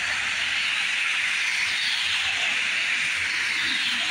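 Steady hiss of heavy rain falling.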